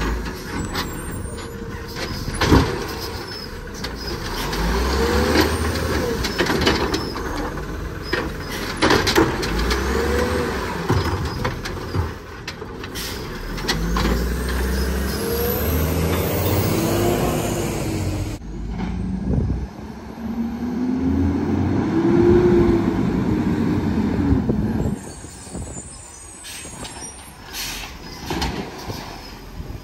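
Condor garbage truck with an Amrep Octo automated side-loader body at work: the engine revs up and down in repeated swells while the hydraulic arm runs, with sharp bangs as carts are slammed and hisses of the air brakes.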